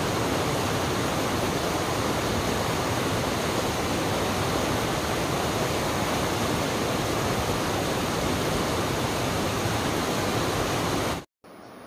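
Whitewater mountain stream rushing over boulders: a loud, steady roar of water that cuts off suddenly near the end.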